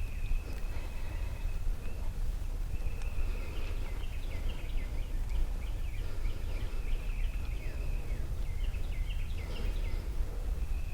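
Outdoor field ambience: a steady low rumble, with faint high bird chirps and trills over it, busiest in the middle and again near the end.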